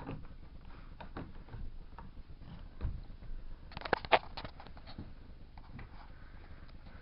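Wooden bird-hide window shutter being closed and fastened by hand: light knocks and rattles of wood and latch, with a quick cluster of clicks about four seconds in that ends in one sharp knock, the loudest sound.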